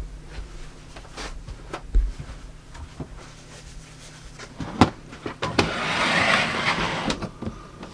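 Light knocks and clatter, then a plastic storage bin scraping for about two seconds as it is slid onto a wooden floating shelf, starting a little past the middle.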